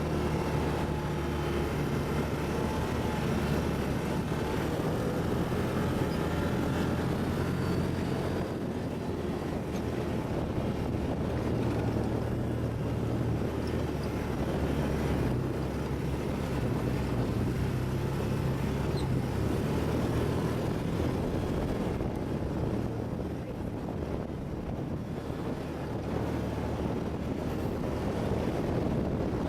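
ATV engine running steadily under way, its note shifting slightly up and down with the throttle.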